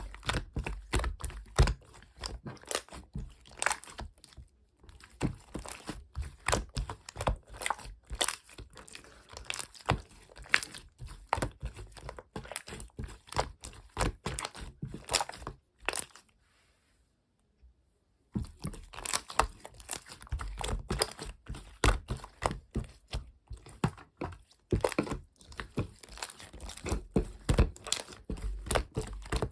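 Close, dense crinkling and crunching: many sharp irregular clicks and crackles, stopping for about two seconds a little past the middle before starting again.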